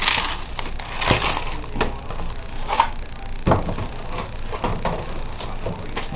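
A plastic bag of model-kit parts crinkling and rustling as it is handled, with irregular crackles and clicks, the sharpest about halfway through.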